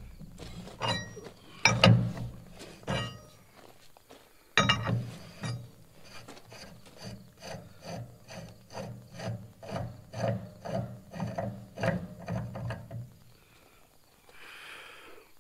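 A pipe tap being backed out of freshly cut threads in an old cast-iron tractor manifold, grating metal on metal. There are a few loud, heavy scrapes in the first few seconds under the tap wrench, then a quicker run of short scrapes, about two a second, as the tap is spun out by hand. The scraping stops about two seconds before the end, once the tap is out.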